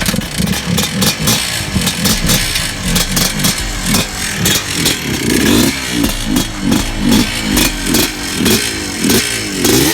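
Small kick-started off-road engine running and being revved in quick repeated blips, its pitch rising and falling over and over, with some mechanical clatter.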